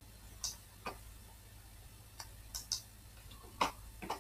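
Quiet scattered clicks of a computer mouse and keyboard, about seven in four seconds, over a faint steady low hum.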